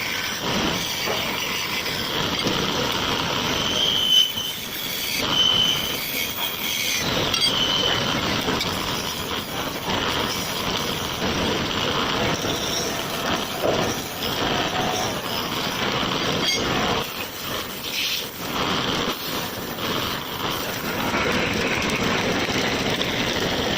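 Wood lathe turning a workpiece while a hand-held turning tool cuts the spinning wood: a steady scraping, rasping noise, with a few short high squeals about four to eight seconds in.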